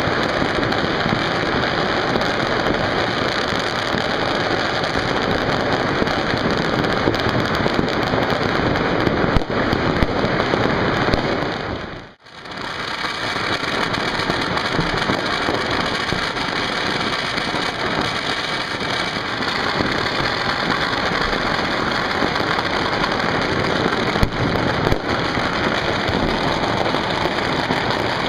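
Dense, continuous crackle of many firecrackers and fireworks going off at once, with an occasional sharper bang. The sound drops away almost to nothing about twelve seconds in, then swells straight back.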